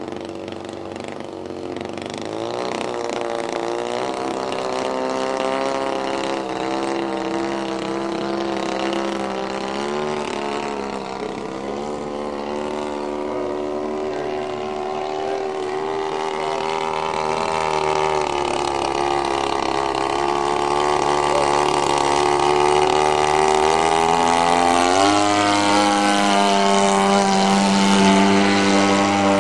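Two-stroke XYZ 50cc gasoline engine of a 27% scale CAP 232 radio-controlled model plane, turning a Xoar 20x8 propeller in flight. The engine note rises and falls as it manoeuvres and passes, then climbs in pitch and grows louder near the end.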